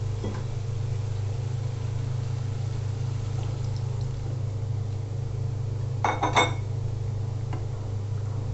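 A wooden spatula stirring a fish curry in a karai over a steady low hum. About six seconds in comes a short cluster of sharp clinks, a vessel knocking against the pan as liquid is added.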